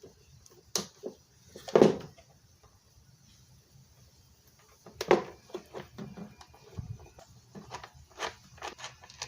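Scattered clicks and knocks of small metal hardware being handled and fitted: bolts, locking nuts and a small Allen key on the router table's switch mount. One louder knock about two seconds in, a quiet stretch, then a run of light clicks.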